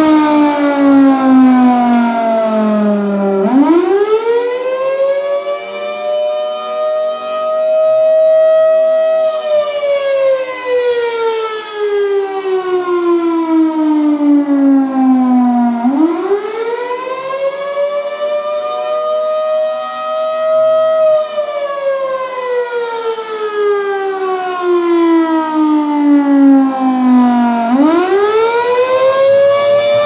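Federal Thunderbolt 1000B C-series tornado siren with a 4M blower sounding the attack signal, a rising and falling wail. The pitch climbs quickly, holds high for about five seconds, then winds slowly down before climbing again, three climbs in all. The loudness swells and fades as the horn rotates.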